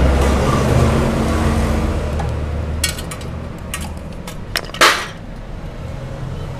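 Sharp clinks and taps of metal tools and parts being handled, with a louder short rattle just before five seconds in. A steady low hum fades out after the first two seconds.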